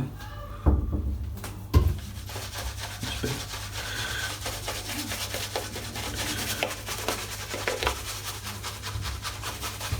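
A soft shaving brush scrubbing lather over about a week's stubble on a scalp, a continuous scratchy brushing of many quick strokes. Two dull thumps come in the first two seconds.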